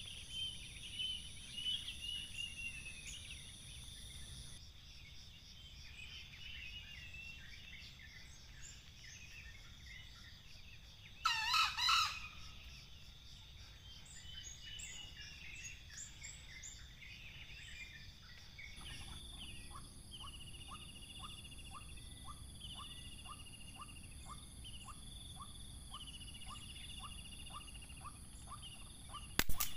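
A green junglefowl crows once, a short call of about a second and the loudest sound here, over faint wild birdsong. Later a regular chirping comes about twice a second, and a sharp click sounds near the end.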